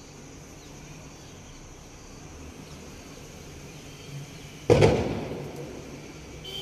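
A single sudden loud bang about three-quarters of the way through, fading away over about a second, over a low steady background hum.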